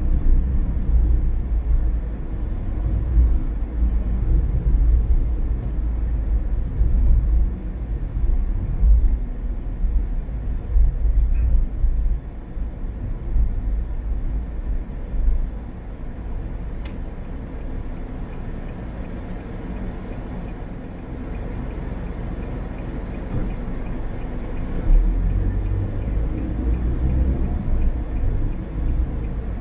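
Car on the move: a steady low rumble of road and engine noise that eases for several seconds past the middle and builds again near the end, with a single sharp click about seventeen seconds in.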